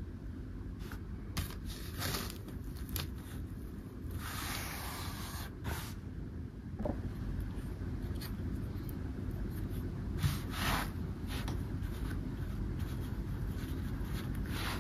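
Small plastic playground toys being handled and set down on carpet: scattered light clicks and taps, with a longer scraping rustle about four seconds in, over a steady low background hum.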